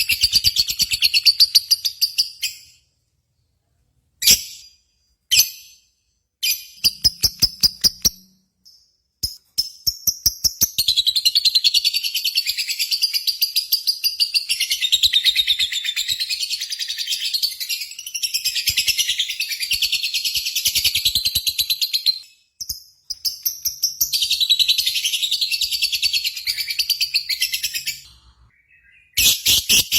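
Lovebird chattering song: fast, high, rippling trills in long runs broken by short silences, the longest run lasting about twelve seconds.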